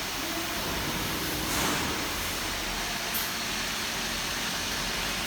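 Steady workshop background noise, a broad hiss with a faint low hum. It swells briefly about a second and a half in, and there is one short sharp click just after three seconds.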